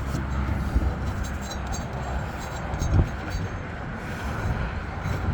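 Steady low rumble of nearby road traffic, with a few light clicks and a soft knock about three seconds in.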